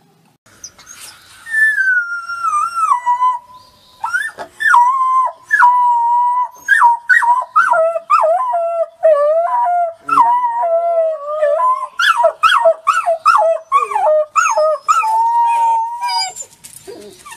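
Young wolf pups howling in chorus: a long falling howl, then several voices overlapping in wavering howls broken by short yips, which stop near the end.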